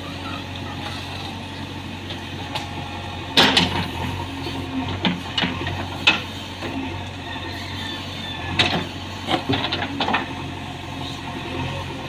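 JCB 3DX backhoe loader's four-cylinder diesel engine running steadily while the backhoe digs and dumps soil. Sharp clanks and clatters of the steel bucket and falling earth and stones come over it: a loud one about three and a half seconds in, more around five to six seconds, and a cluster around nine to ten seconds.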